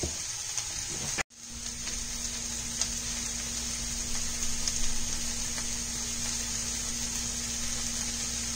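Onions and shallots sizzling in hot oil in a pan as they are sautéed to soften, with a steady low hum underneath. The sound drops out briefly about a second in.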